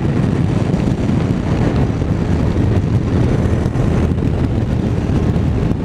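Honda X-ADV's 745 cc parallel-twin engine running steadily under way, mixed with wind rushing over the microphone.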